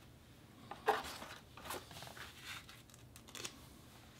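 Paper handling on a wooden tabletop: a stiff printed card rustling as it is laid down and shifted, along with light handling of a watch. It comes as a few short rustles and soft taps, the loudest about a second in.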